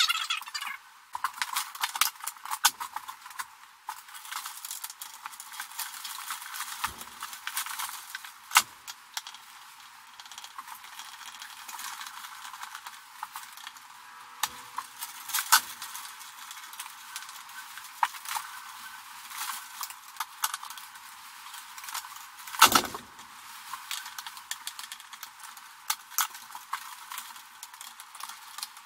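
Irregular small clicks, taps and rustling of wires and metal parts being handled at an electrical breaker panel during wiring, with a louder knock late on.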